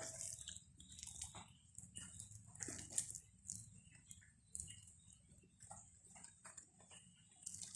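A pet eating: faint, irregular chewing with small wet clicks and crunches.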